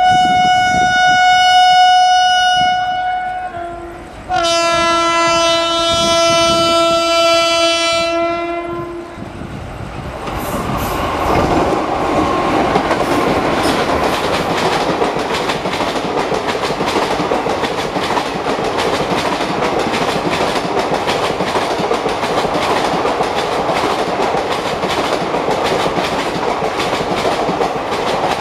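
Electric locomotive horn sounding two long blasts, the second with a lower tone added, then passenger coaches rushing past at speed with a steady rumble and rapid clatter of wheels over rail joints.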